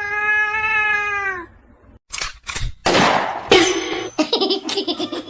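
A cat gives one long, steady meow. It is followed by a few sharp clicks and a rush of choppy noise.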